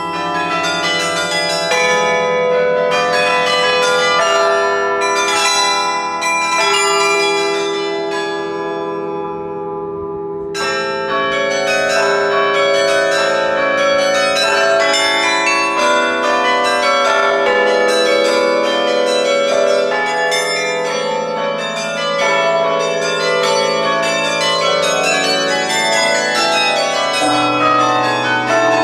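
Sather Tower's carillon being played: many tuned bronze bells struck in a melody with chords, their tones overlapping and ringing on, heard close up from the top of the tower. The playing thins out and softens about eight seconds in, then comes back in full about two seconds later.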